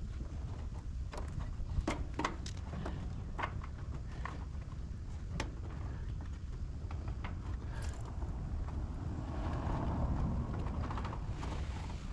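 Scattered sharp clicks and knocks of hands and tools handling the parts of an air-conditioning unit, over a steady low hum.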